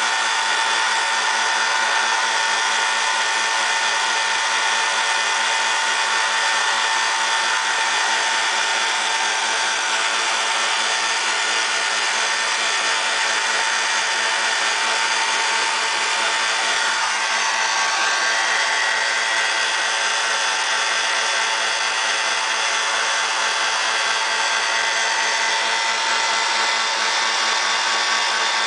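Golf-club ferrule-finishing machinery, a belt sander and turning machine, running steadily. It makes a constant motor whine with several held tones over an even hiss, with no change in load.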